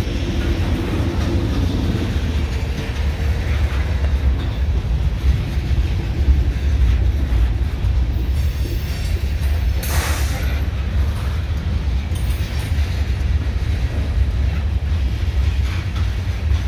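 Freight train of grain hopper cars rolling past at close range: a steady, heavy low rumble of wheels on rail, with one brief sharp noise about ten seconds in.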